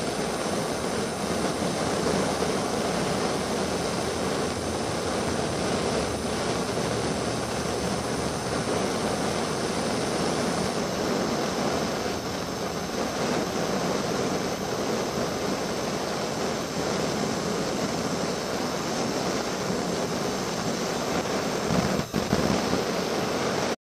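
Handheld blowtorch flame burning with a steady hiss, heating a screwdriver's metal shaft so that it can be bent. The hiss dips briefly near the end.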